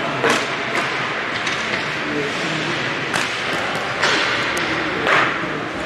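Ice hockey game sound: several sharp clacks and short scrapes, typical of sticks, puck and skates on the ice, over a steady rink din with faint voices.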